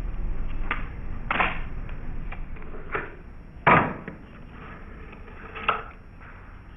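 Tech Deck fingerboard clacking and knocking against a wooden ramp and floor as fingers flip and set it down: several separate sharp knocks, the loudest a heavier thump about halfway through.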